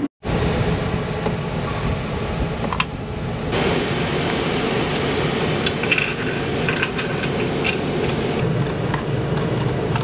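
Light metallic clicks and taps of small clamp hardware being handled and tightened on a CNC router's aluminium bed, over a steady rushing noise with a low hum.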